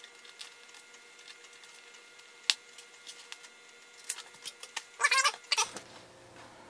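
Handling noise as metal spring flying wires are hooked onto a foam model airplane's tail: a few sharp clicks, then a brief squeaky, crackly scrape about five seconds in.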